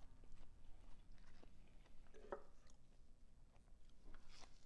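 A person chewing food close to the microphone: faint, scattered wet mouth clicks and crunches, with a louder one about halfway through and another near the end.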